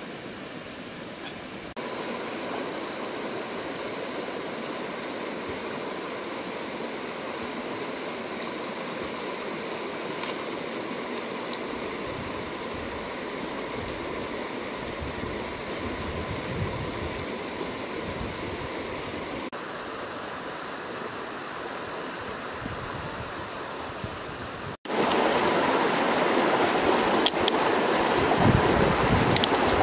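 Shallow river running over rocks in small cascades, a steady rush of water. It gets louder after a cut near the end, where a few sharp knocks come as stones are set down on the rock.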